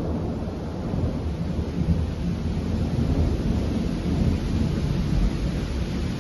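Thunder rumbling on and on, rising and falling in waves without a single sharp crack.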